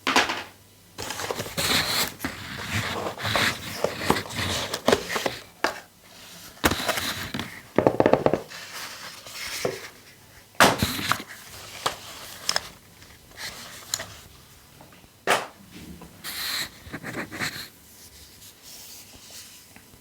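Hands handling a tablet's packaging: irregular rustling, crinkling and scraping of plastic and paper, with a few sharp clicks.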